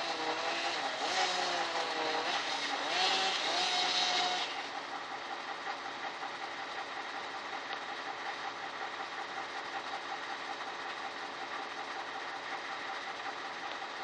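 Mobile crane's engine running: it revs with rising and falling pitch for the first four or so seconds, then drops back to a steady drone.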